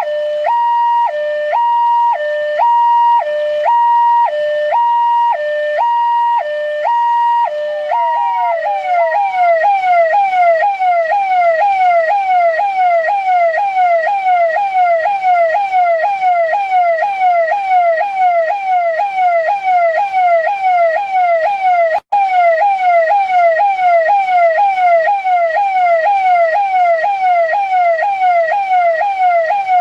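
Electronic police siren, given as a New Delhi police siren. It first alternates two tones, high and low, about once a second. About eight seconds in it switches to a fast repeating falling wail, two or three falls a second. The sound cuts out very briefly about two-thirds of the way through.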